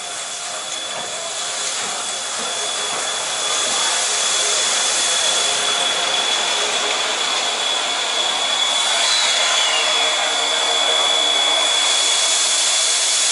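C58 steam locomotive pulling in alongside the platform, giving off a steady hiss of escaping steam that grows louder over the first four seconds and then holds, with a thin high tone running through it.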